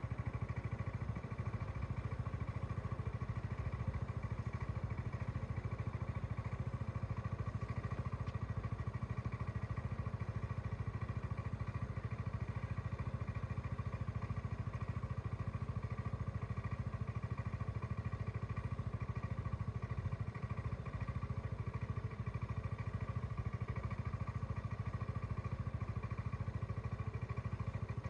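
Motor scooter engine idling steadily close by, waiting at a closed level-crossing barrier, with a steady high tone behind it.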